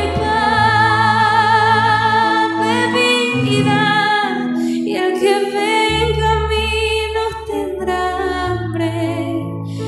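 A church hymn sung by a female voice, with violin and keyboard: a melody with vibrato over sustained low keyboard notes.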